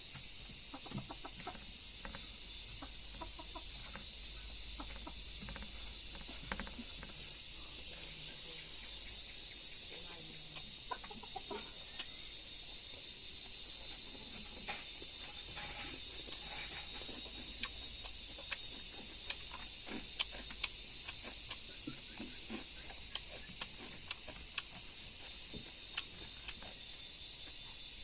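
Chickens clucking now and then over a steady chirring of crickets, with scattered sharp clicks that come more often in the second half.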